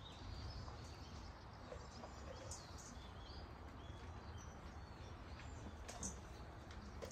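Small birds chirping in short repeated calls over a faint, steady low rumble, with a few light clicks.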